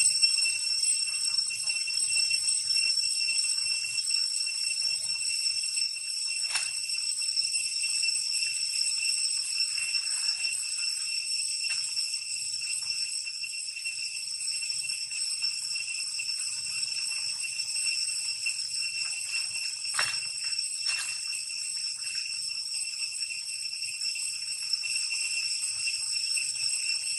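Insects droning in a continuous shrill ringing chorus that holds several steady high pitches, with two brief sharp clicks, about a quarter of the way in and about three quarters of the way in.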